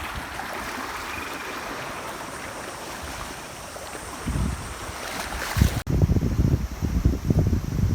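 Waves washing on a lakeshore in strong wind, a steady rushing. From about four seconds in, heavy gusts buffet the microphone with a low rumble, broken by a brief dropout just before six seconds.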